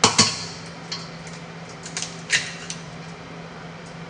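Sharp knocks and clicks on a stainless steel stand-mixer bowl as eggs are cracked into it: a quick pair right at the start, a few lighter taps, then one louder knock a little over two seconds in.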